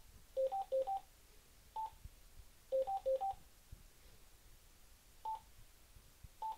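TYT TH-8600 mobile radio's key beeps as its buttons are pressed to step through the menu. The short electronic beeps come twice as quick runs of low-high two-note pairs, then as single higher beeps a second or more apart.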